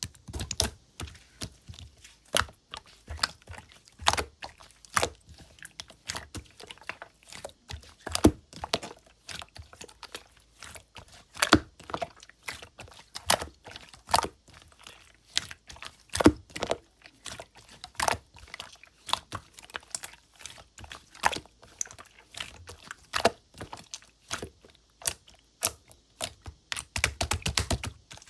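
Irregular sharp clicks and taps, one or two a second, with a quick flurry of them near the end.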